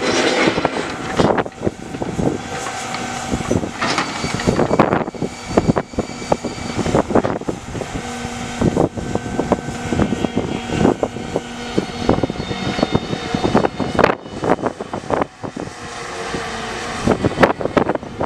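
A crane truck's engine running under load, with steady hydraulic tones rising and falling as the boom works, and repeated sharp clanks of steel scrap rails being picked up and set down by the grapple.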